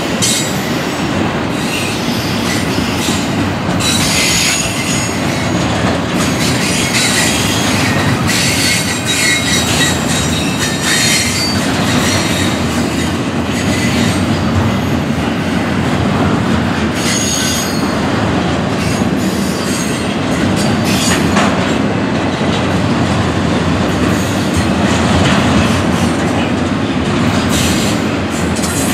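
Double-stack intermodal freight cars loaded with shipping containers rolling past: steel wheels on the rails giving a loud, steady rumble and clatter, with brief high-pitched wheel squeals now and then.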